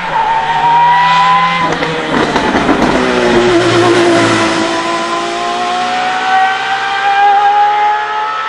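Aston Martin Valkyrie's Cosworth 6.5-litre V12 at high revs under hard acceleration. After a short break and drop in pitch about two seconds in, the note climbs steadily as the car goes past and away.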